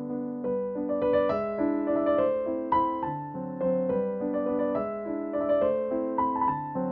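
Background piano music: a gentle melody of single notes over lower notes.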